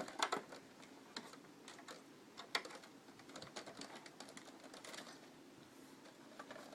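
Irregular light clicks and taps of cables being handled and Molex power and 40-pin ribbon connectors being plugged back into optical drives inside a desktop computer case, busiest in the first second.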